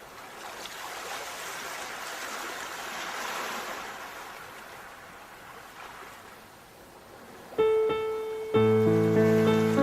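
The hiss of ocean waves swelling and ebbing, then a piano enters about three-quarters of the way in, a single held note followed a second later by a full chord with bass.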